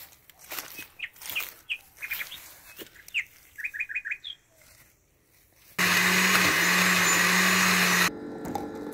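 Small birds chirping in short repeated calls, then an electric countertop blender starts and runs loudly for about two seconds, blending a thick milky drink, before dropping to a quieter hum near the end.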